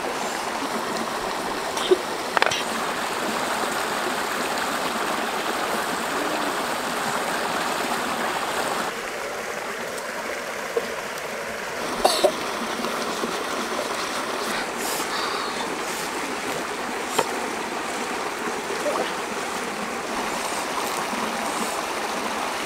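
Shallow stream running over rocks, a steady rushing noise, with a few short sharp knocks scattered through it.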